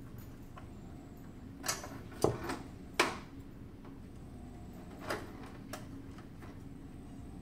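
Metal clunks and clicks as a power supply board in its sheet-metal housing is fitted back into a resuscitator. There are a few sharp knocks around two to three seconds in and two lighter ones around five to six seconds in, over a steady faint hum.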